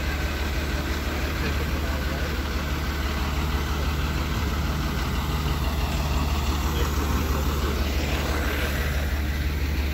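Flatbed tow truck's engine idling steadily, a low, even hum.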